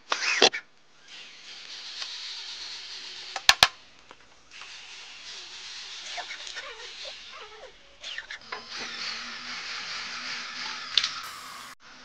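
Corded electric drill running in three runs of a few seconds each on wooden deck slats, with a sharp knock just after the start and two sharp clicks about three and a half seconds in.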